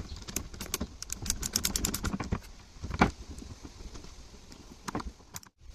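Hand driver with a T8 Torx bit turning in a small bolt on a steering-column turn signal switch: a quick run of clicks for about two seconds, then a few single clicks, the loudest about three seconds in.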